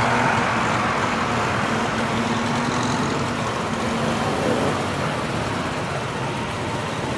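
Engines of a vintage convertible and a column of old motorcycles running at low speed as they pull away from a start line, the car passing close and the motorcycles following behind; a steady mixed engine noise.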